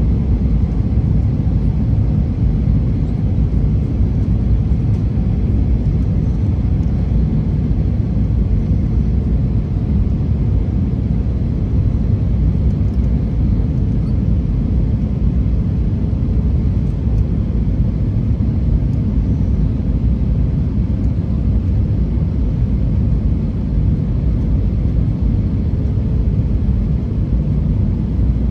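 Jet airliner cabin noise heard from a window seat over the wing during the descent to land: a steady low rumble of the engines and airflow.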